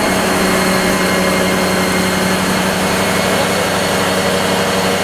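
Machinery running steadily with a constant low hum over an even rushing noise, unchanging throughout.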